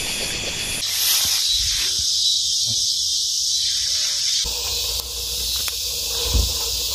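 A steady, hiss-like high-pitched chorus of insects on a summer evening by a pond. Its pitch and loudness shift at cuts about a second in and again just past four seconds.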